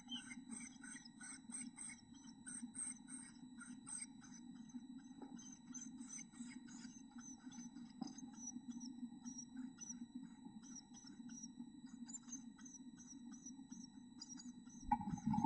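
Black-capped chickadee nestlings begging in the nest box: a rapid run of thin, high chirps, several a second, over a steady low hum. Near the end, a loud thump and rustle.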